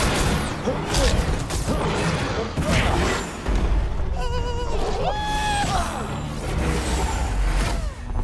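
Cartoon action sound effects of blasts, crashes and whooshes over background music, with a wavering, warbling tone about four to five seconds in.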